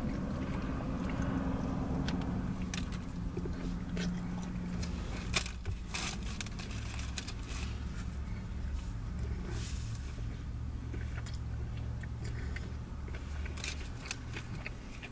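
Eating sounds of a man chewing a sandwich, with scattered small clicks and crackles of handling, one sharp click about five seconds in. A steady low hum of the car's interior runs underneath.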